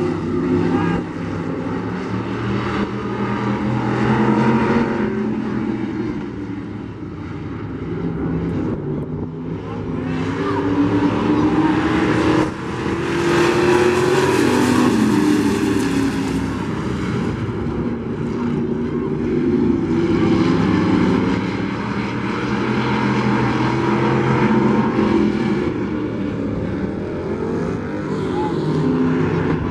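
Engines of several dirt-track racing pickup trucks running hard around the oval, their pitch rising and falling as they lap. Loudest as the pack passes close, about twelve to sixteen seconds in.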